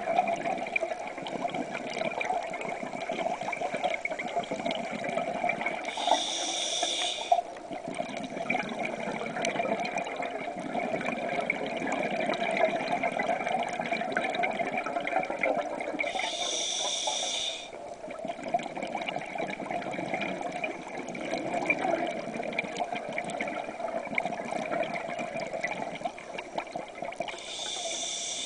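Scuba diver's regulator breathing underwater: a hissing inhalation about every ten seconds, three in all, with bubbling exhalations between them over a steady wash of water noise.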